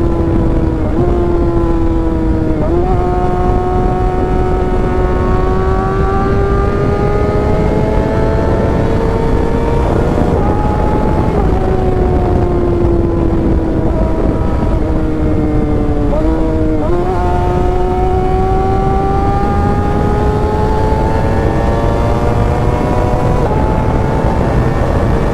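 Kawasaki ZX-6R inline-four engine under way, over steady wind noise. The engine note climbs slowly as the bike accelerates, with short dips at quick gear changes near the start. It eases off and falls in the middle, then climbs again after two more quick dips near the end.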